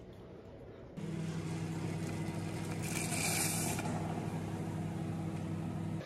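A steady low machine hum, a few held low tones over a noisy haze, starts suddenly about a second in. A short burst of hiss comes about three seconds in.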